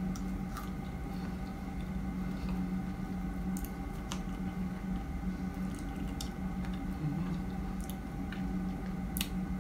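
Someone chewing fresh strawberries close to the microphone: wet, squishy mouth sounds with scattered sharp smacks and clicks, over a steady low hum.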